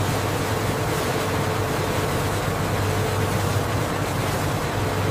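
Steady running noise of a food-processing conveyor line: an even hiss over a constant low hum, with a thin steady tone above it.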